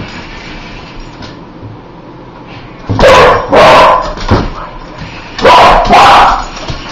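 Dog barking: after a quiet start, loud barks come in two pairs, the first about three seconds in and the second near the end.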